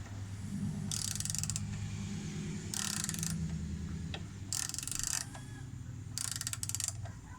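Hand ratchet tightening a bolt in slow strokes: four bursts of rapid pawl clicking, each about half a second to a second long, coming about a second and a half apart.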